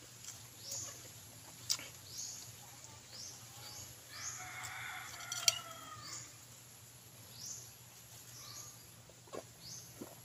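A rooster crows once, a long call about four seconds in, while a bird's short high chirps repeat throughout. A few sharp clinks of a metal spoon against a ceramic bowl.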